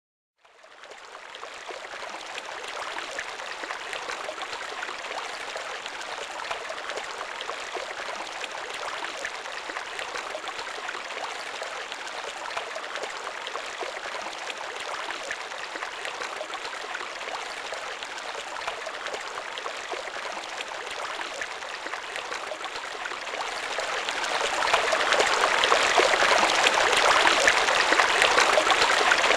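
Steady rush of running water, fading in at the start and growing louder about 24 seconds in.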